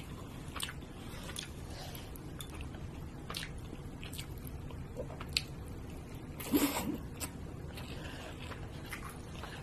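Eating sounds: wet mouth and lip smacks while chewing grilled wagyu beef with rice, with scattered light clicks of wooden chopsticks against the plate. One louder wet smack comes about six and a half seconds in.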